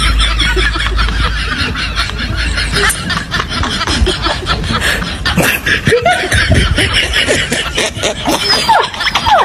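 People laughing: snickering and chuckling.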